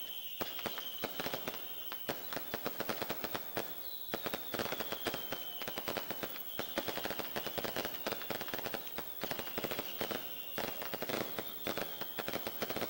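Fireworks crackling: a rapid, unbroken string of sharp firecracker pops, many a second. A high whistle that sinks slightly in pitch sounds over the crackle several times.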